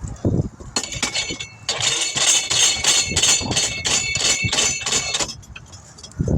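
Tire changing machine working a wheel, with a run of rhythmic metallic clinking and ringing, about three strokes a second, for some three and a half seconds, after a few scattered knocks.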